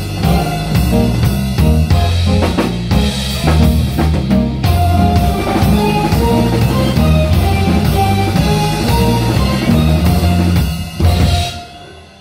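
Live reggae band playing the close of a song: drum kit over a bass line, with keyboard and electric guitar. The band stops together about eleven seconds in and the sound dies away.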